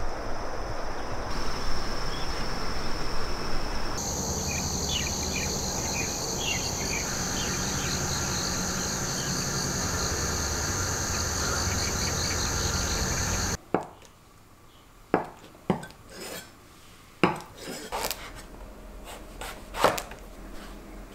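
Outdoor wind noise and a steady high insect chorus, which cuts off about fourteen seconds in. Then a kitchen knife slicing a vegetable on a wooden cutting board, with about six sharp knocks of the blade on the board.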